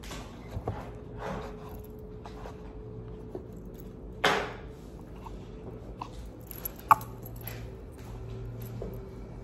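Hands handling a wristwatch and its presentation box: light rustles and small clicks, with one louder rustle about four seconds in and a sharp click about seven seconds in, over a steady low hum.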